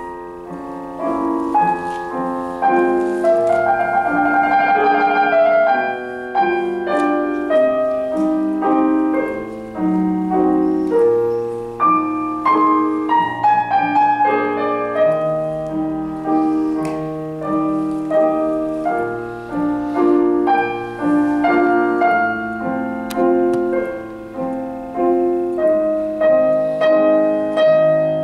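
Solo piano music played on a digital piano: a busy, continuous passage of many quick notes, with a fast trill around four to five seconds in.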